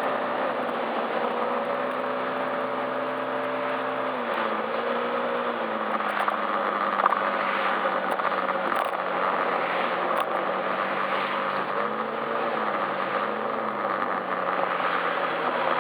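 Yamaha Majesty S scooter's single-cylinder engine running at low revs under a steady haze of wind and road noise. Its hum drops in pitch in steps about four seconds in and again near the end, with a brief rise and fall a few seconds before that.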